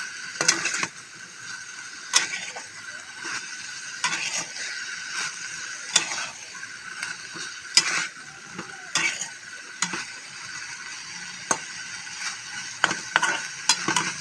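Vegetable stems and meat sizzling in a frying pan while a metal spatula stirs them, scraping and clacking against the pan every second or two.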